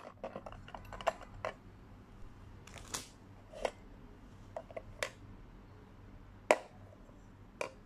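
Scattered clicks and light clinks of a clear plastic cutlery case being handled and opened, with a stainless steel spoon and chopsticks knocking against the plastic as the spoon is lifted out. About a dozen separate short knocks, none lasting.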